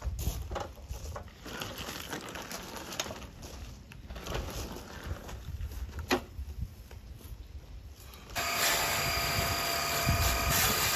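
Knocks and rustling as a walk-behind mower is handled and set back on its wheels, with one sharp knock about six seconds in. About eight seconds in, the Honda self-propelled mower's petrol engine is heard running, loud and steady with a hiss.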